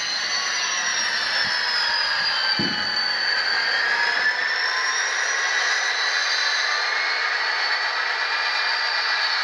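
Tsunami sound decoder in an Athearn GP49 model locomotive playing its simulated EMD diesel engine through the model's small speaker, with a high whine that dips in pitch and rises again, as the locomotive is brought down from a high speed step to a stop. A single low knock comes about two and a half seconds in.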